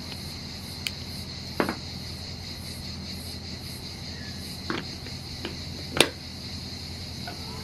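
Scattered plastic clicks and knocks as a 3D-printed battery adapter with a USB converter is handled and fitted onto a Parkside 20V battery pack, the loudest click about six seconds in. A steady, high-pitched, cricket-like background tone runs underneath.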